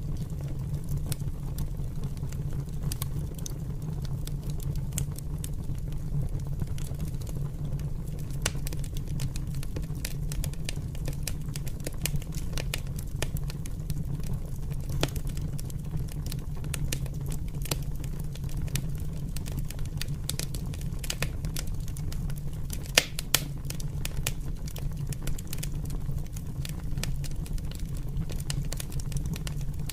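Open fire burning: frequent sharp crackles and pops over a steady low rumble, with two louder pops in quick succession late on.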